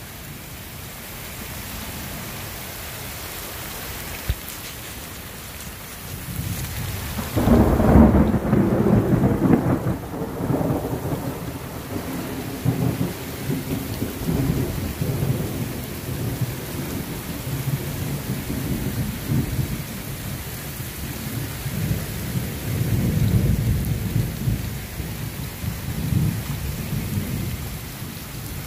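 Downpour of rain hissing steadily, then a loud clap of thunder about seven seconds in that rolls on in long rumbles to the end.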